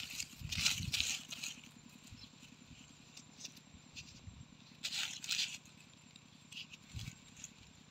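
Fingers scraping and digging through dry sandy soil and dead leaves: two short bouts of scratching, about a second in and again around five seconds in, with small crackles of dry litter between.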